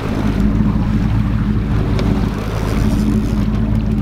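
A boat's engine running with a steady low drone, over a wash of wind and water noise. A single faint click sounds about two seconds in.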